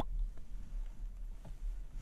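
Close-miked mouth sounds: a wet lip click at the very start, then a couple of faint soft clicks over a low steady hum.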